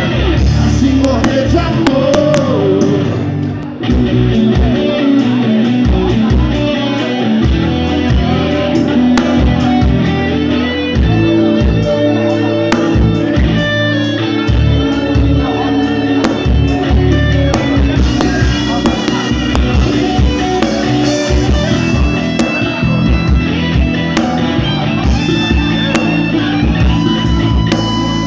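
A band playing music, with guitar prominent over a bass line and a beat.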